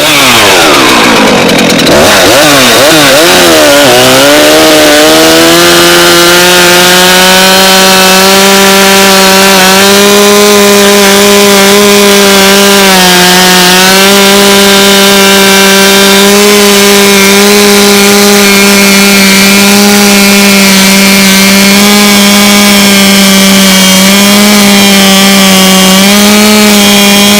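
Stihl MS 441 two-stroke chainsaw revving up, then held at full throttle cutting through wood, its pitch steady apart from a couple of slight dips. The chain is dull, which keeps the saw's RPMs down in the cut.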